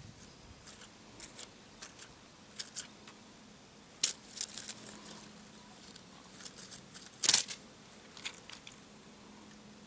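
Scattered short, dry rustles and crackles of grass and leaves as a kitten bats at and pounces on a dangling feather wand toy, with louder ones about four seconds in and just after seven seconds.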